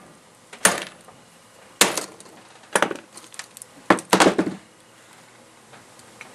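Hammer blows driving a nail into a plastic toy spy watch held in pliers: sharp knocks about a second apart, with a quick cluster of two or three near the end.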